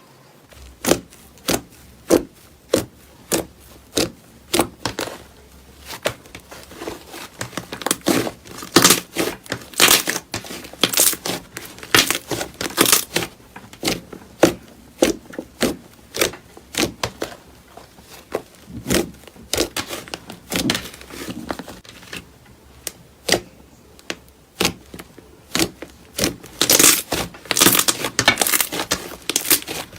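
Slime being squeezed and pressed by hand, giving sharp crackling pops, spaced about every half second at first, then coming faster and more unevenly.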